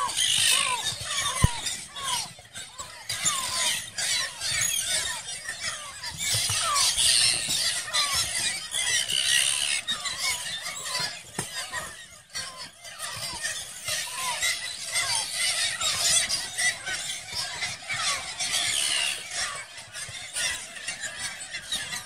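A large flock of Arctic terns calling in a feeding frenzy over the water: a dense, continuous chorus of high, overlapping calls, with many short downward-sliding calls repeating through it. A single sharp click sounds about a second and a half in.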